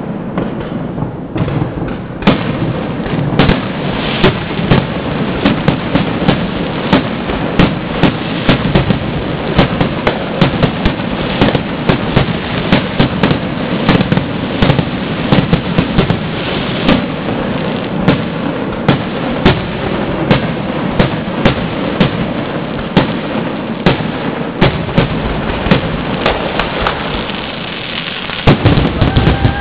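Aerial fireworks shells bursting in a rapid, continuous barrage: sharp bangs about two or three a second over a steady rumble and crackle.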